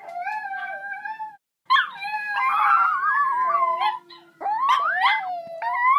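Dog howling in three long drawn-out howls with wavering pitch, split by brief pauses, the middle one the longest and the last rising toward the end.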